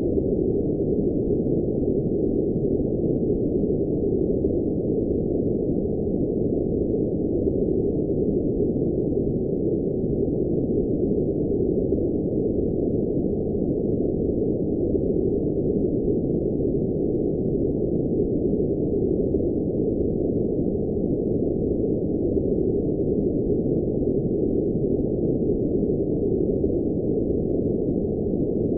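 Steady, unchanging electronically generated noise, billed as blue noise, but with all its energy below about 1 kHz and none in the treble, so it sounds like a dull, muffled rush rather than a bright hiss.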